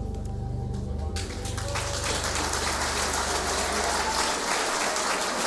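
Audience applause breaking out about a second in as a song ends, with the music's last low notes dying away underneath.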